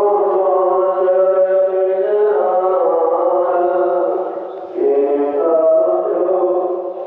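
A voice chanting Sikh devotional recitation in long held notes over a steady low drone, changing pitch twice.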